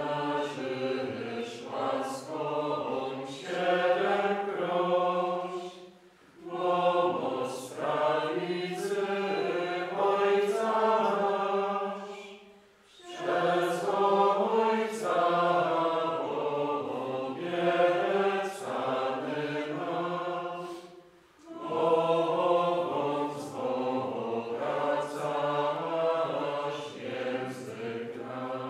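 A group of men's voices singing a hymn, in four long phrases with short breaks between them.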